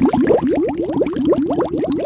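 Cartoon crab sound effect: a fast, bubbly stream of short rising blips, several a second.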